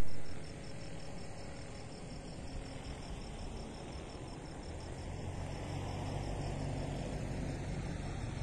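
Crickets chirping at night: a steady, evenly pulsing high note over a low rumble, after a brief loud burst at the very start.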